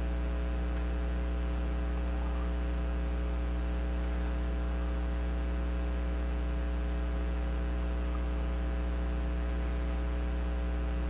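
Steady electrical mains hum: a low, unchanging buzz with a ladder of overtones, and nothing else standing out.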